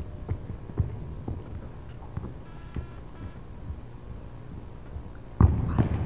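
A breakdancer's hands and body thudding on the floor during power moves, soft thumps about two a second, then a much louder thump near the end.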